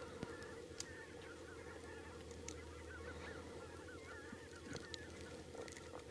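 A flock of wild geese calling: many faint, overlapping honks and yelps that run on without a break. A steady low hum lies underneath, with a few sharp clicks.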